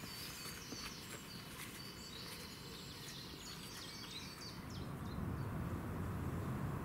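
Small birds chirping and twittering in quick, high calls. A low rumble swells in over the last couple of seconds as the chirps fade.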